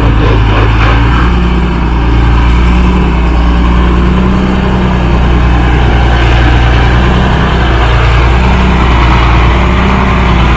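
Heavy diesel engine running steadily and loudly at a low, even speed.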